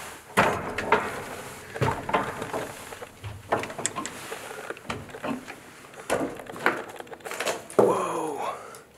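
Footsteps climbing old wooden stairs: a series of heavy thuds on the treads, about one every second, with a gliding wooden creak near the end.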